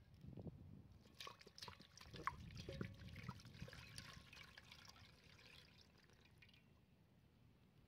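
Faint sound of water poured from a clay jug splashing and trickling onto a stack of grape leaves in a steel pan, starting about a second in and dying away near the end.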